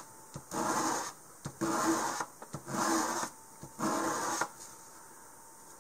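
A stack of die-cut model-rocket fins pulled across fine sandpaper in four rasping strokes about a second apart, stopping about four and a half seconds in. This is the fin edges being sanded even and square.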